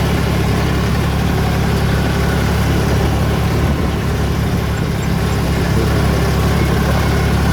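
Tractor engine running steadily at an even, low pitch.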